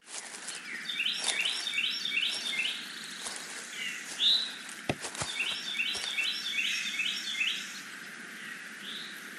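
Birdsong: a bird gives a quick run of repeated chirps, then a single call, then another run of chirps, over a steady background hiss. Two sharp clicks come just before the middle.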